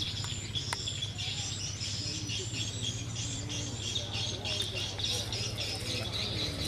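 Small birds chirping repeatedly over a steady low hum from the rotors of a multirotor crop-spraying drone flying some way off.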